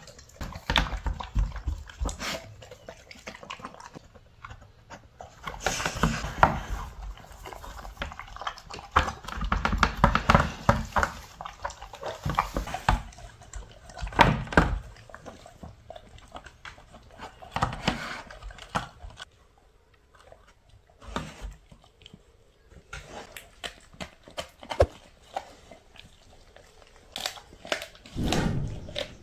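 A large dog eating from a slow-feeder bowl: irregular bouts of chewing, crunching and licking, with sharp clicks and knocks as the bowl shifts on the wooden floor. Quieter stretches come between the bouts.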